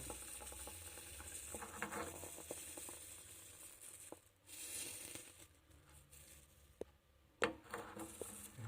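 Faint sizzling and bubbling as water boils off wet gold in a small aluminium dish on a stove, with a sharp click or two near the end.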